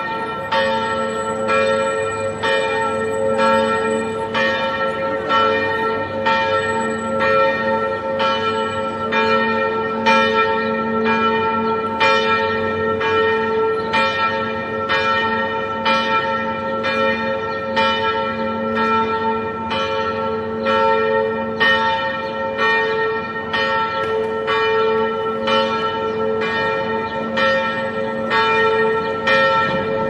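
Church bell tolling, struck about once a second, each stroke ringing on into the next so that its hum never dies away between strikes.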